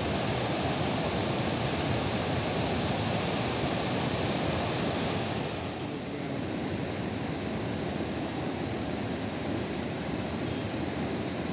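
Beas River rushing past, a steady, even noise without breaks, a little quieter from about six seconds in.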